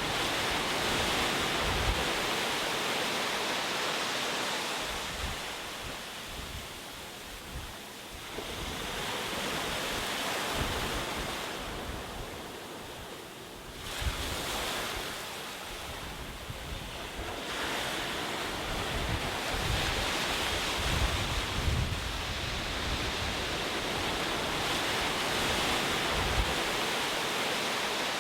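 Ocean waves breaking and washing onto the shore in slow surges that swell and ebb every few seconds, one wave coming in suddenly about halfway through.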